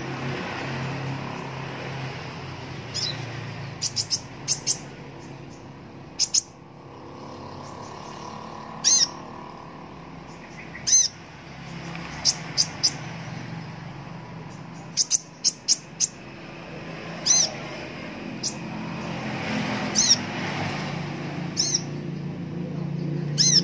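Van Hasselt's sunbird (kolibri ninja) giving short, sharp, high chirps, singly and in quick runs of two or three, every second or two, over a low steady hum.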